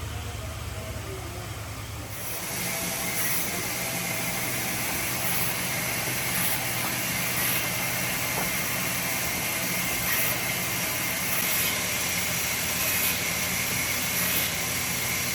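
Woodworking machinery running steadily: a motor hum with a constant high whine over a noisy background, getting louder about two seconds in.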